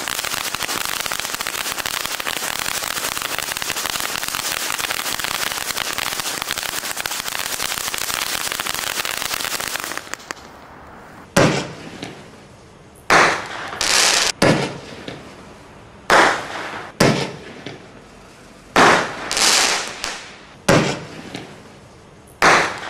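Standard Fireworks Laserquest ground fountain spraying sparks: a dense, steady hiss and crackle that stops abruptly about ten seconds in. Then Standard Fireworks Whizz Bang rockets go off one after another, about ten short sudden whizzes and bangs, each starting sharply and fading away.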